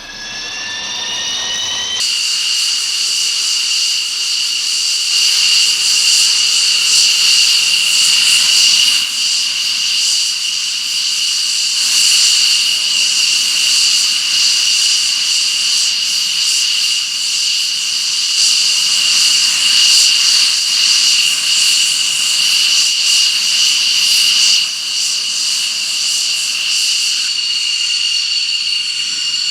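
Military jet engine whining as it spools up: several high tones rise together over the first two seconds, then settle into a loud, steady high-pitched whine with a rushing hiss.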